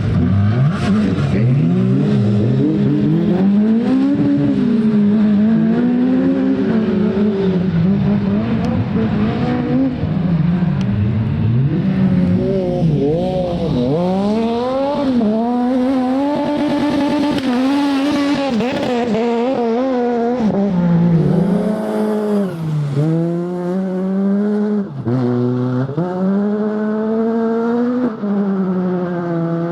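Rally car engine revving hard, its pitch rising and falling again and again as the driver accelerates, lifts and shifts. In the second half come several quick drops in revs, each followed by a fresh climb.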